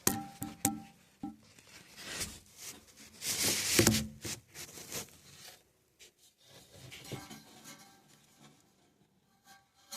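Rustling, scraping and clicking as equipment is handled by hand, with a louder rough scrape about three and a half seconds in and scattered light clicks afterwards.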